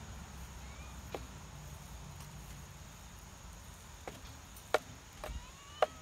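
Turkeys pecking at a hanging plastic feeder: about five sharp taps of beak on plastic, scattered and the loudest two near the end.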